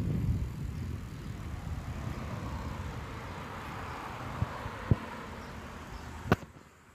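Wind buffeting a phone's microphone during a ride, a steady low rumble under a hiss. Three short sharp knocks come in the second half, the last one loudest.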